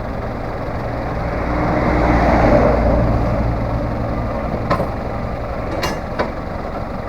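Three-wheeled farm tractor's engine running steadily, swelling louder for a couple of seconds around the middle, with a few short knocks near the end.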